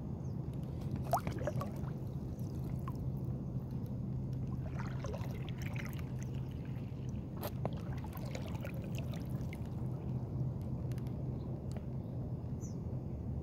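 Lake water lapping and trickling against a small paddled boat close to the microphone, with scattered light clicks and knocks over a steady low rumble.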